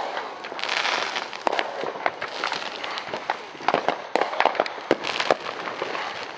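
Consumer fireworks going off all around: many sharp cracks and bangs at irregular intervals, some close together, over a steady crackle and hiss.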